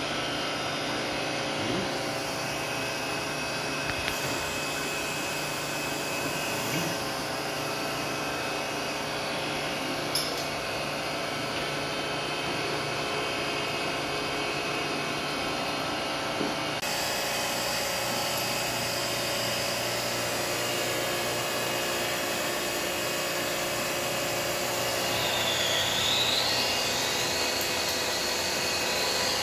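Surface grinder with a rotary magnetic chuck running steadily, a constant machine whine made of several steady tones, with a few light clicks. Near the end a high whine dips in pitch and rises again.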